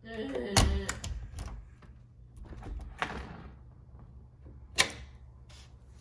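Flathead screwdriver clicking and scraping against the metal tabs of a door latch inside the door's bore: a handful of sharp metallic clicks, the loudest about half a second in and near five seconds in. The screwdriver is working the latch free by hand because the broken knob no longer moves it.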